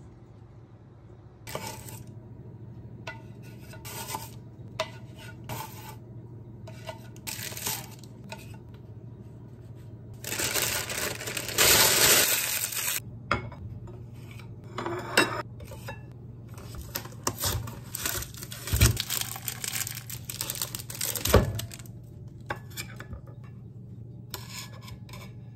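Kitchen handling sounds: clicks and clatter of a baking tray and dishes, with a paper towel rubbing hard over the baking tray for a couple of seconds about ten seconds in, the loudest part. A few sharp knocks of dishes come later.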